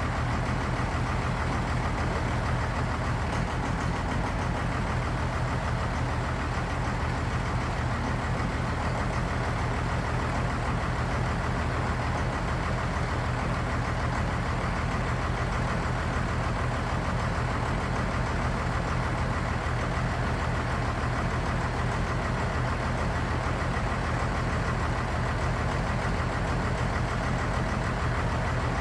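12-valve Cummins 5.9-litre inline-six diesel idling steadily and rough on a newly fitted Bosch VE injection pump. The rough running is what the owner takes for a bad pump or pump timing set too far advanced or retarded.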